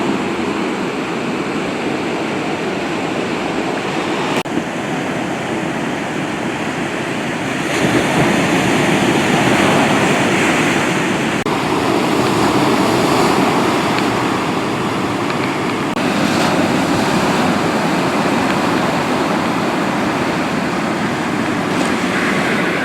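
Ocean surf washing onto the beach, a steady rush of breaking waves that swells louder about eight seconds in and again a few times after.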